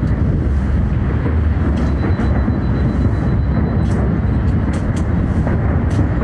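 Distant New Year fireworks: a continuous low rumble of overlapping booms, with a handful of sharper cracks on top.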